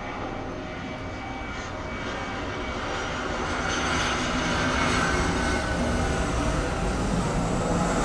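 The engine noise of something passing, a steady rumble that grows louder over the first few seconds and then holds.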